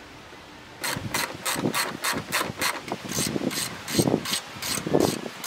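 Hand ratchet wrench clicking in quick, uneven strokes, about three to four a second, starting about a second in, as a socket is turned on a bolt.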